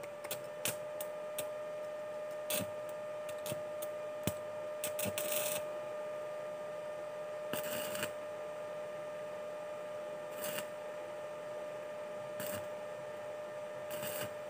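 Stick welding with a Lakoni 900-watt inverter welder: the arc crackles and sputters in irregular clicks and short hissing bursts over a steady high whine.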